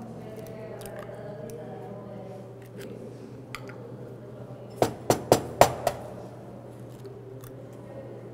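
An egg rapped sharply about five times against the rim of a stainless steel bowl to crack its shell, about five seconds in, over a steady low hum.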